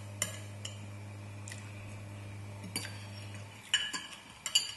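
A metal fork and chopsticks clinking and scraping against a glass bowl while eating: a few light clinks, then a quick cluster of sharper clinks near the end. A steady low hum runs underneath and stops about three and a half seconds in.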